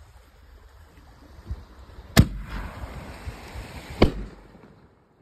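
Consumer firework canister shell fired from its mortar tube: a sharp launch bang about two seconds in, then the shell bursting about two seconds later, with a golden willow break.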